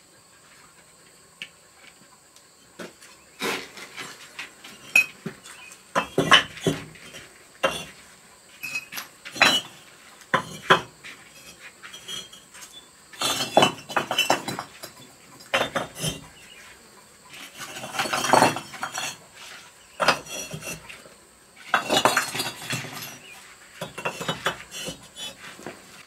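Hollow red clay bricks clinking and knocking against one another as they are handled and stacked, in irregular bunches of clatter with pauses between.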